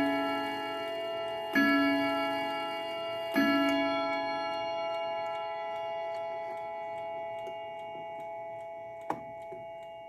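Howard Miller triple-chime clock striking three o'clock: two deep hour strokes about two seconds apart, each ringing out slowly, with the movement ticking faintly underneath. Near the end there is a single sharp click.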